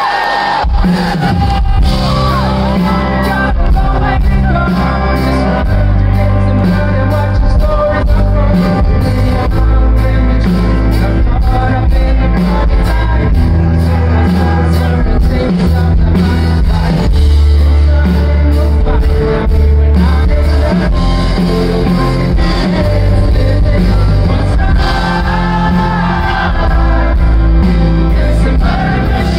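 Live rock band playing through a large PA: sung lead vocals over electric guitars, keyboards, a heavy bass line and a steady drum beat, loud.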